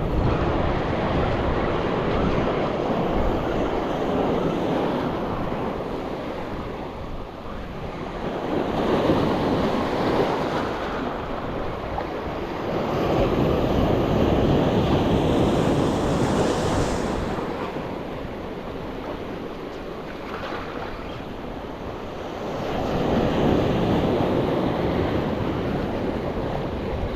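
Sea surf breaking and washing in long swells that rise and ease every several seconds, with wind buffeting the microphone.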